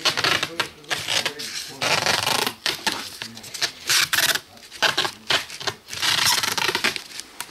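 Paper masking tape being pulled off its roll in repeated strips, each half a second to a second long, and pressed and rubbed down as it is wrapped around a polystyrene-covered board, with short clicks and handling noise between the pulls.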